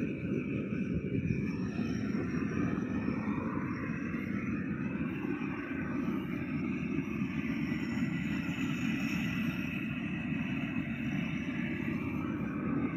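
Antique stationary gas engine running steadily, a dense low mechanical chugging.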